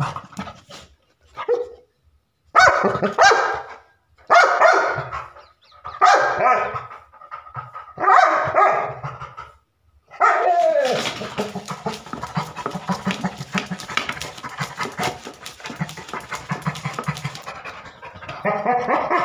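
Labrador retriever barking, about five loud, drawn-out barks spaced a second or two apart, then panting rapidly from about ten seconds in.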